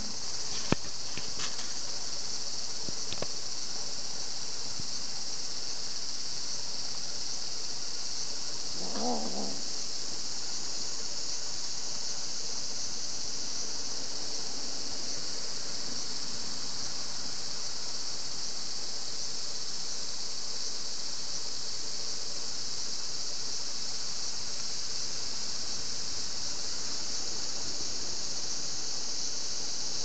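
Cicadas singing in a steady, high buzzing chorus. A few sharp clicks come in the first few seconds, and a short, lower call comes about nine seconds in.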